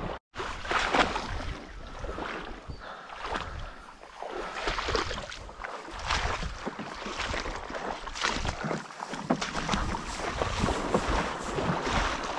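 Footsteps wading and splashing through a shallow creek, in irregular strokes about every second, with wind rumbling on the microphone.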